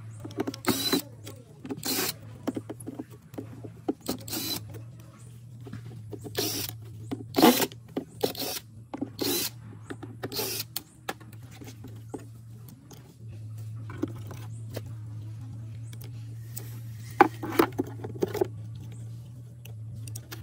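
Cordless impact driver backing out the screws that hold a speaker cabinet's tweeter, in short spurts again and again through the first half and twice more near the end, over a steady low hum.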